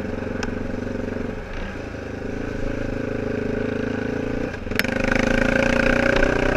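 Small off-road vehicle's engine running under throttle on a rough dirt trail, easing off about a second and a half in, then opening up louder near the end. A sharp knock comes just before it gets louder.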